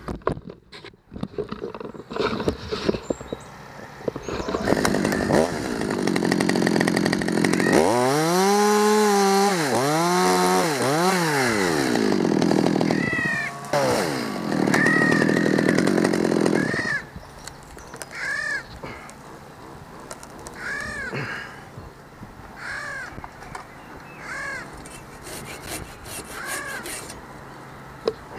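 Chainsaw running and cutting, its pitch rising and falling with the throttle, for about twelve seconds. It then drops back to a quieter stretch in which short high rising-and-falling calls repeat every second or so.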